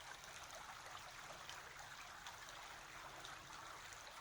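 Faint, steady trickling of water.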